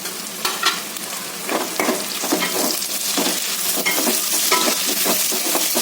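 Curry leaves and green chilies sizzling in hot oil with fried onions and whole spices, stirred in the pan with a run of short scraping strokes.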